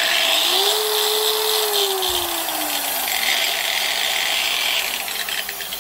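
Makita 9566CV SJS variable-speed angle grinder running free with no load. Its whine slides down in pitch as the speed is turned down, and its load-compensating speed control lets it sag and then picks it back up.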